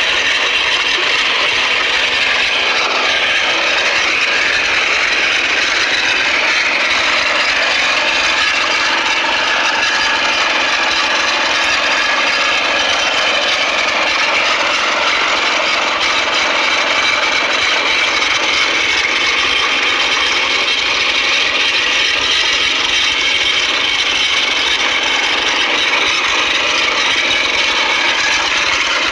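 A walk-behind power tiller's small air-cooled engine runs steadily under load as the machine pulls its disc ploughs through the soil.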